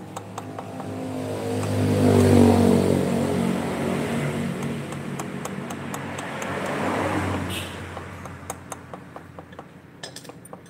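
Two-stroke motorcycle engine revved twice, swelling to a peak about two seconds in and again about seven seconds in, then dropping back, with small clicks over it. The noise sounds very deep inside the engine, which the mechanic puts down to a worn part he says is cured by replacing it.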